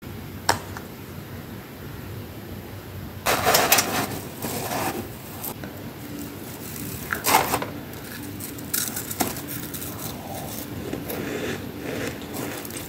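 Metal spoon digging and scraping into a tub of fluffy freezer frost, giving crisp crunching scrapes. There is a longer bout of crunching about three seconds in, a shorter one a few seconds later, and scattered clicks of the spoon.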